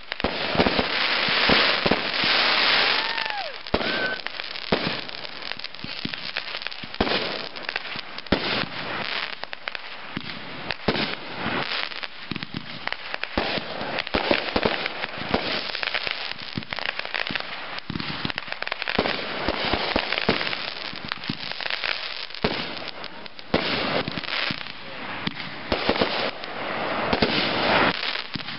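Fireworks going off in quick succession: a dense run of bangs and crackling from aerial bursts, with hardly a gap between them.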